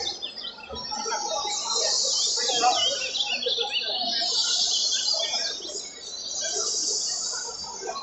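Many caged azulões (ultramarine grosbeaks) singing at once, their high warbled phrases overlapping into a continuous chorus that dips briefly about six seconds in.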